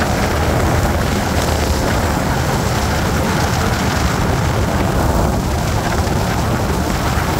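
A 1987 Chevrolet K10 pickup drives along a dirt road, its engine running steadily under loud tyre and road noise. This is its first drive after a blown head gasket was replaced.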